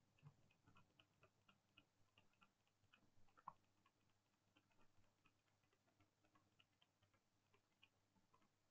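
Near silence with faint, quick, irregular computer mouse clicks, several a second, thinning out near the end.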